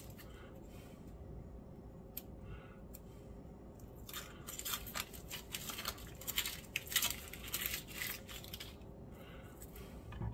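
Dry papery skin being peeled off a yellow onion: faint, scattered crackling and rustling, thickest from about four to eight seconds in.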